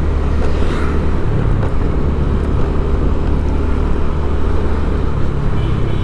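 Steady vehicle engine and road rumble, a continuous low drone with no letup.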